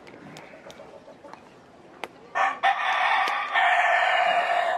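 A rooster crowing once: one long crow of about two and a half seconds, starting about halfway in and running in three joined parts.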